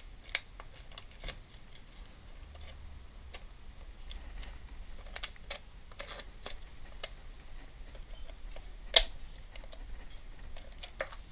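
Scattered small clicks and taps of parts being handled as a Suzuki 2.5 HP outboard's recoil pull-starter is put back together. One sharper knock comes about nine seconds in.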